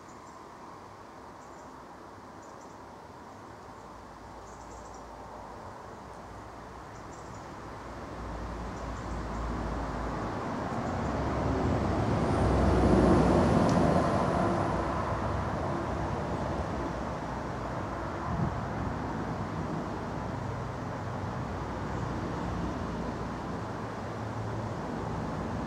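A passing road vehicle: its noise swells steadily to a peak about halfway through, then eases off into steady traffic noise.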